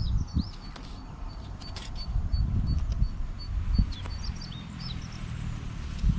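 Small birds chirping and peeping, with a steady low rumble underneath and a few light clicks.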